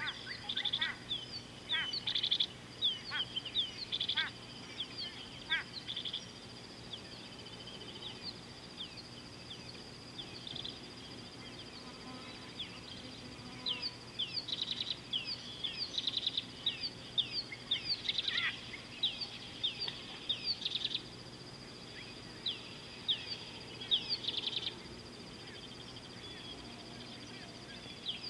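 Wild birds calling: quick series of short, high, down-slurred chirps in clusters every second or two, over a steady high-pitched whine.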